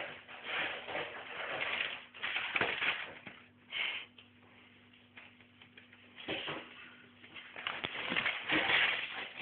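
Irregular bursts of close rustling and scuffing, in clusters of a second or so with short gaps, over a faint steady low hum.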